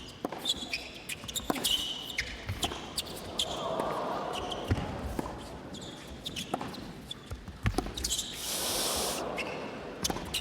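Tennis rally on an indoor court: the ball struck by rackets and bouncing, in a run of sharp pops, with brief shoe squeaks. A short burst of crowd noise comes about eight and a half seconds in.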